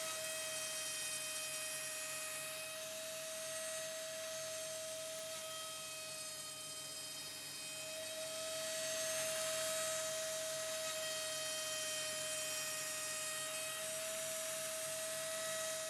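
Router spindle on a homemade CNC running with a steady high whine while a larger bit cuts across the wooden board to surface and clean it up, with a swell of cutting noise about nine seconds in.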